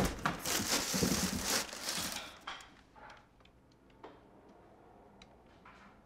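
Cardboard moving box and its paper contents being rummaged through: dense crinkling and rustling for about the first two and a half seconds. It then gives way to a few faint, scattered light ticks.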